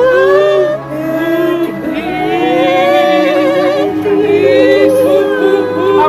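Music: a voice singing long, wavering held notes with vibrato, with a steady lower tone beneath it for the first couple of seconds.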